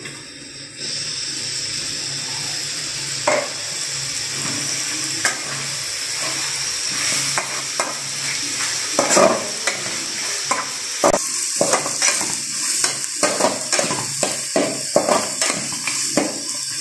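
Mutton pieces in masala sizzling in oil in a metal kadai while a flat metal spatula stirs and scrapes them against the pan. The sizzle comes up about a second in, and the scrapes and knocks of the spatula come more often in the second half.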